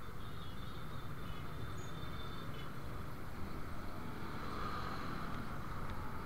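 Dense motorcycle traffic: the rider's own motorbike and the scooters around it moving off from a traffic-light stop, a steady low engine and road rumble.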